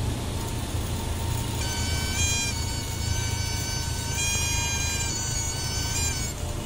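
Cabin noise of a single-engine Cessna rolling out on the runway after landing: a steady low engine hum. About a second and a half in, music with long held high notes that step in pitch every second or so comes in over it.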